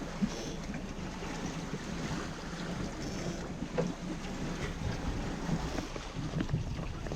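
Wind buffeting the microphone over water washing along a yacht's hull, with the boat's engine running steadily underneath and a few light knocks.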